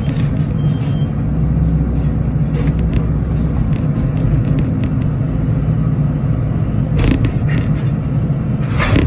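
Excavator's diesel engine running steadily under load during demolition of a concrete house, with scattered knocks and two louder crunching impacts, about seven seconds in and near the end.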